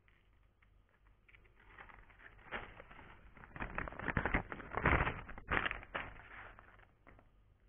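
Small plastic bag crinkling and crackling as it is handled close to the microphone. The crackling builds about two seconds in, is loudest in the middle, and fades near the end.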